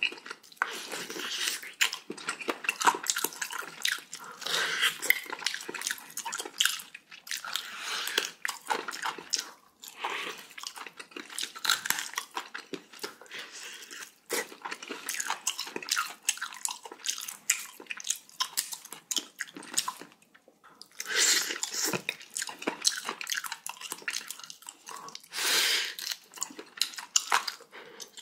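Close-miked eating sounds of a meal of cubed radish kimchi and pork-bone soup: continuous, irregular crunching and chewing, with a few louder moments near the end.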